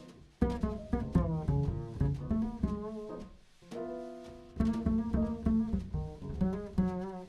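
Upright double bass played pizzicato in a jazz line: quick runs of plucked, decaying notes.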